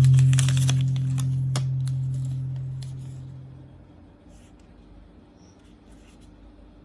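A held low note of background music fading out over about four seconds, with light clicking and scratching handling sounds over it; then faint ticks in near quiet.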